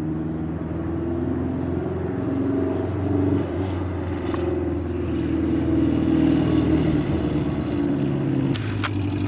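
Old cafe-racer motorcycle engine running steadily at low speed, its pitch rising and falling slightly, with a brief drop about seven seconds in and a couple of sharp clicks near the end.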